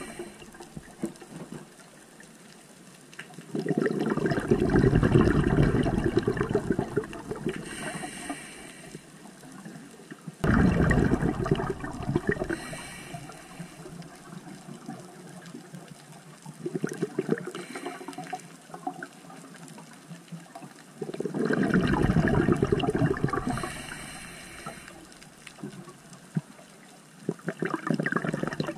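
Scuba regulator exhaust: the diver's exhaled bubbles gush and rumble past the camera housing in bursts about every six seconds, one per breath, with a quieter hiss between them.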